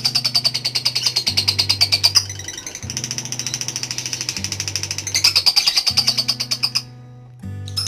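Lovebird's long 'ngekek': a very fast, high-pitched chattering trill that runs on for several seconds, changing strength twice and breaking off briefly near the end, over background music with a low bass line. This is the extended chatter of a lovebird in full song, the kind used as a lure to train other lovebirds.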